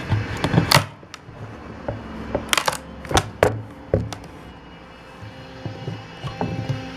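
Tools and a wooden workpiece being handled: irregular knocks and clicks over a faint steady hum.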